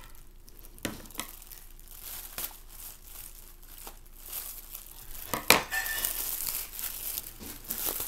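Packaging crinkling and rustling as a bike helmet is unwrapped by hand, with scattered crackles, a sharp snap about five and a half seconds in, and busier crinkling after it.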